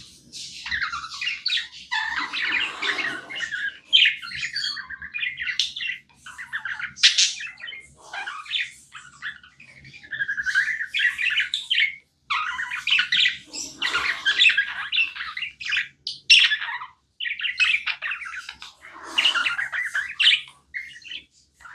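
Budgies chirping almost non-stop in quick runs of high, warbling calls, broken by a few short pauses.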